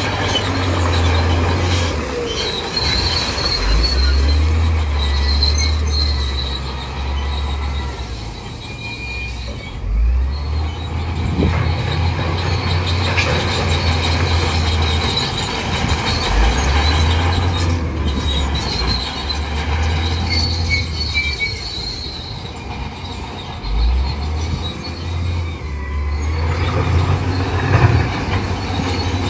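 Crawler bulldozer's diesel engine working hard in mud, its low drone loading up and easing off every few seconds, with high metallic squealing from the steel tracks.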